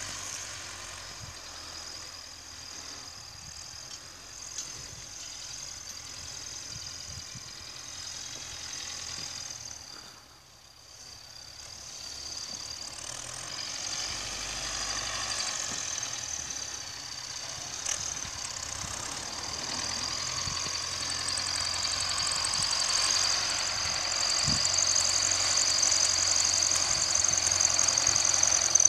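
MTZ-82 tractor's four-cylinder diesel engine running under load as it pulls a cultivator, heard from a distance. It fades briefly about a third of the way in, then grows steadily louder as the tractor approaches.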